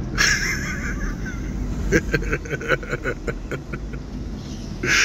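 Car driving, heard from inside the cabin: a steady low engine and road rumble. About two seconds in it is broken by a quick run of short sounds, around six a second.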